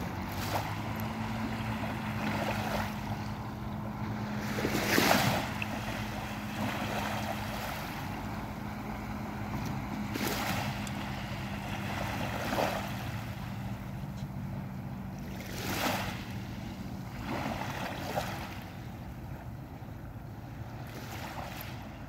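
Small, calm sea waves breaking gently and washing up over a pebbly sand beach. Each wave gives a soft swell of hiss every few seconds, the biggest about five seconds in. Under it a steady low hum starts about a second in and stops shortly before the end.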